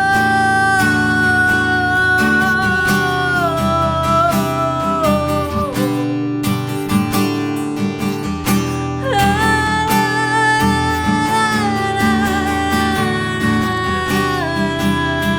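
Worship music played on acoustic guitar, with long held melody notes sliding between pitches over a steady repeating accompaniment.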